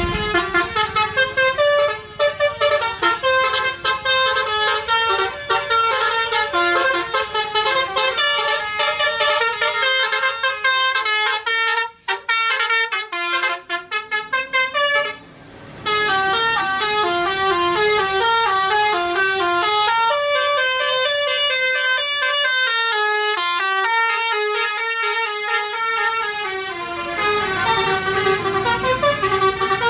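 Tour bus's multi-tone Basuri telolet horn playing fast melodies, the notes stepping quickly up and down, with a short break about halfway through before the tune starts again.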